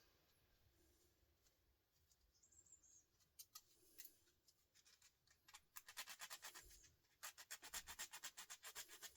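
Quick, rhythmic scratching strokes, about eight a second, as a small screw is rubbed to bare its metal and show whether it is brass. They come in two quiet runs, a short one about six seconds in and a longer one from about seven seconds in, with a few faint clicks before.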